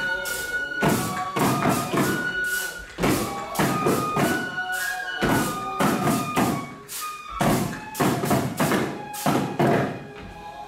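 Three-lion dance music: the lion dancers beat the small drums hung at their waists in irregular clusters of strikes, while a Japanese bamboo flute holds long high notes. The drumming thins out near the end.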